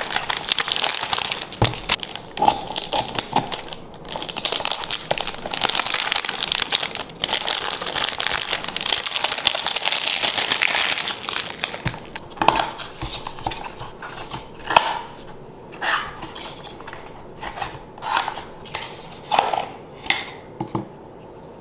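Cellophane wrap being crinkled and peeled off a cardboard perfume box, a dense crackling for about the first twelve seconds. After that come scattered light taps and knocks as the box is opened and handled.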